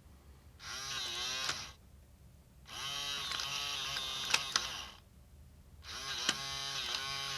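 Sure-Loc touch screen electronic deadbolt's small motor driving the bolt in three runs of a second or two each, a whine that bends in pitch, with sharp clicks. The lock is throwing and retracting its bolt to work out which way the door swings after a factory reset.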